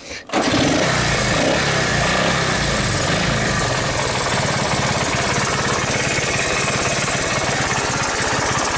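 1981 Honda ATC185S three-wheeler's air-cooled single-cylinder four-stroke engine catching on a cold start about half a second in, then running steadily with a little throttle.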